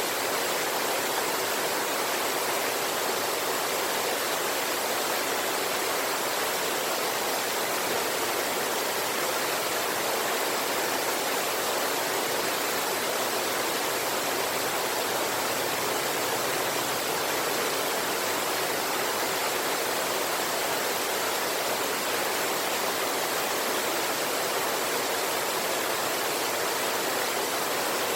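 Steady rush of river water tumbling over a waterfall and rocks, an even unbroken hiss with little low rumble.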